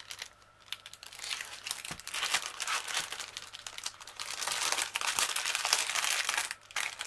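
Clear plastic wrapping crinkling and rustling as hands work it along a rolled canvas. It starts about a second in and drops out briefly near the end.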